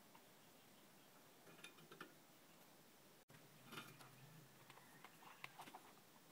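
Faint clicks and light taps from a stand fan's rotary speed selector switch and its plastic housing being handled, a few about one and a half seconds in and a scattered run more after about four seconds.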